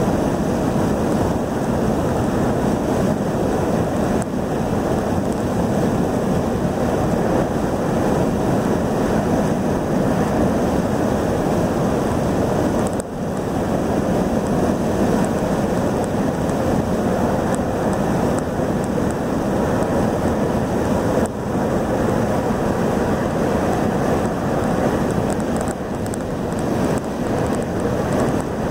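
Steady rushing road and wind noise inside a car cruising at highway speed, with wind buffeting the microphone.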